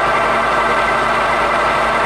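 Clausing Colchester 25-inch geared-head engine lathe running with a steady mechanical hum and a high, even whine.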